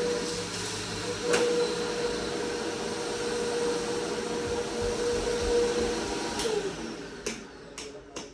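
Vacuum cleaner running steadily with a clear hum, then switched off about six seconds in, its motor pitch falling as it winds down. A few sharp clicks follow near the end.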